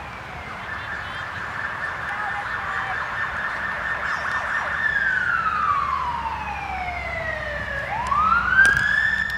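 Police car siren wailing: a high tone held for several seconds, then a slow fall in pitch and a quick rise back up about eight seconds in. A single sharp knock near the end, about when the pitch reaches the plate.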